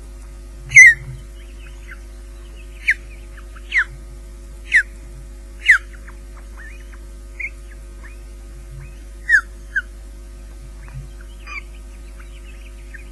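Ospreys at the nest giving a series of short, sharp, downward-sliding whistled calls, roughly one a second, the loudest about a second in. A steady electrical hum runs underneath.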